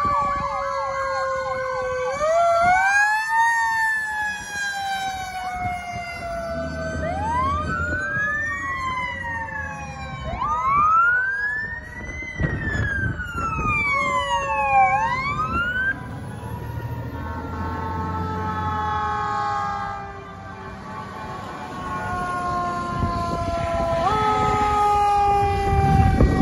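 Several fire truck and police sirens sounding at once as the vehicles drive past, their wails overlapping in pitch sweeps that rise and fall, some tones falling slowly. The rumble of heavy truck engines passes close, loudest near the end.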